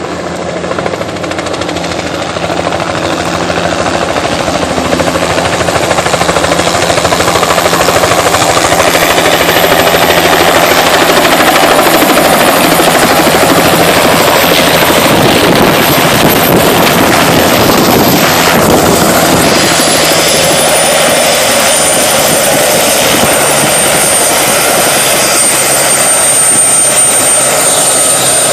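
Helicopter running, a loud steady rush of rotor and engine noise that builds over the first few seconds, with a thin high whine that slides down in pitch about two-thirds of the way through.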